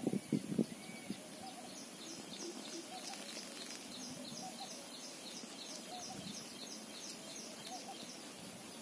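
A bird calling a rapid series of short high notes, about three a second, from about two seconds in until near the end, over faint outdoor background noise and a steady high-pitched hum. A few low thumps are heard in the first second.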